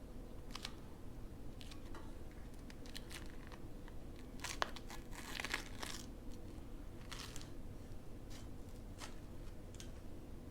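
Masking tape being peeled off a painted metal sign and crumpled, a string of short crackling rips with a longer tearing stretch around the middle.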